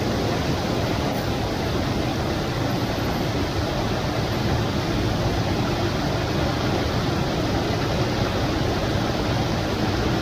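Steady rushing of a small stream.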